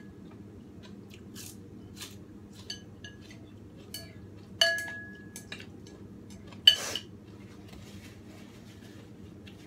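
Chopsticks and a spoon clinking against a soup bowl while eating: scattered light taps, a clink with a short ringing tone about four and a half seconds in, and the loudest clink near seven seconds. A steady low hum runs underneath.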